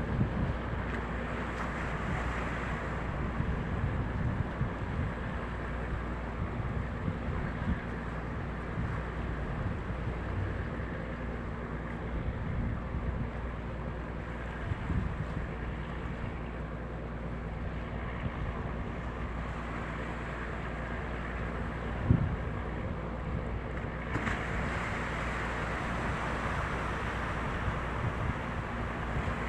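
Steady low drone of a boat's engine under way, with wind on the microphone and the rush of water. A few short knocks come through, one louder about two thirds of the way in, and near the end the wind and water rush grows louder.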